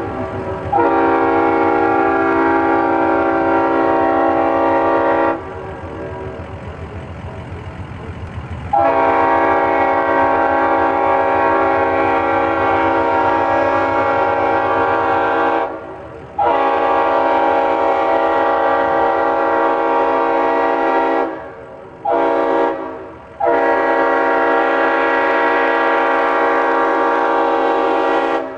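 Multi-chime train air horn sounding a chord in long blasts: one for about five seconds, then a pause, two more long blasts, a short toot, and a last long blast.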